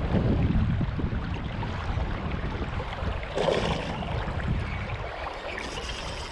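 Rush of flowing river water with a low, uneven rumble of wind on the microphone, a little louder in the first second.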